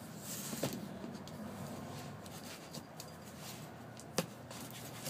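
Faint hand-handling sounds of a mailed package being opened: light rustling with two sharp clicks, a small one under a second in and a louder one about four seconds in.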